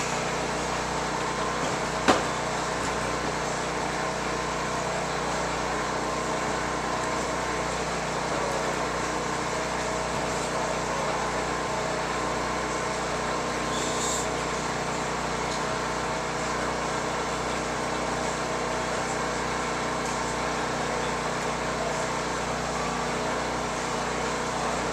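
A steady, unchanging machine-like drone with many held tones, and no music to be heard. A single sharp click about two seconds in.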